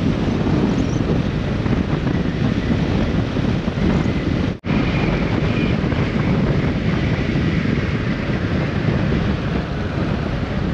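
Steady wind rushing over the microphone of a moving motorcycle, heaviest in the low range, with riding noise under it. It cuts out for an instant near the middle.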